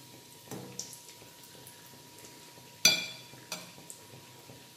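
Beef cutlets deep-frying in a wok-shaped pan of hot oil, a soft steady sizzle and crackle. About three seconds in, a metal slotted spatula is set down with a sharp ringing clank, and a lighter clink follows.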